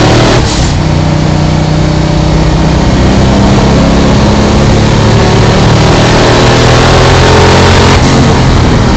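Twin-turbo Ford Windsor 347 V8 of a Mazda FD RX7 race car under acceleration, with mufflers fitted, heard loud from inside the car. The engine note briefly dips just after the start, then climbs steadily in pitch.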